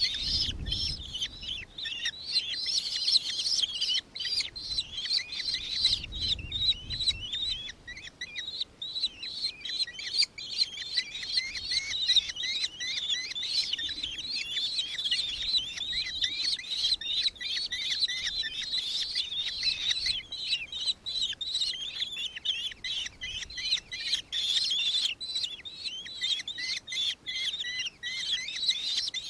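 Birds calling: a dense, unbroken chatter of short, high, quickly repeated notes. Low rumbles of wind on the microphone come near the start and again about six seconds in.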